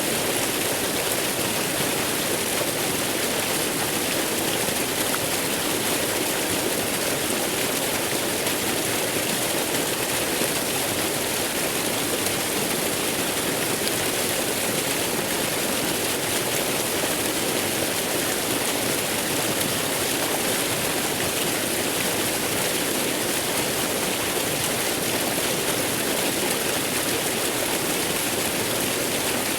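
Waterfall: falling water making a steady, unbroken rushing hiss with no changes or separate splashes.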